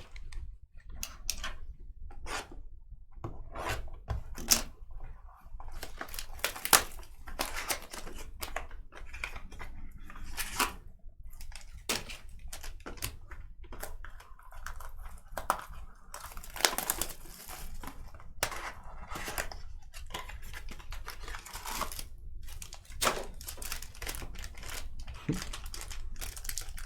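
Trading cards and their packaging being handled: an irregular run of crinkling, tearing and quick clicks and rustles as a pack is opened and the cards are sorted.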